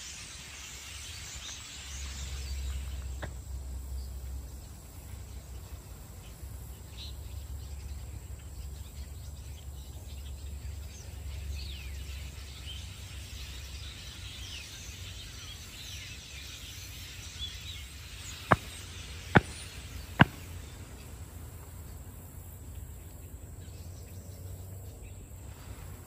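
Outdoor ambience with scattered short bird calls from a large flock flying over the trees, a steady high insect drone and a low rumble. Three sharp clicks, each under a second apart, stand out as the loudest sounds about two thirds of the way through.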